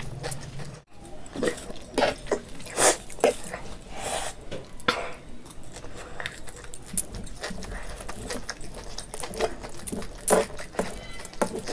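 A person eating noodles: chewing, with irregular short clicks and smacks.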